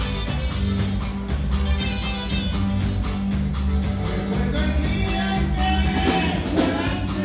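Live band music with electric guitars, bass and drums, played loud over a PA with a steady beat about two to the second.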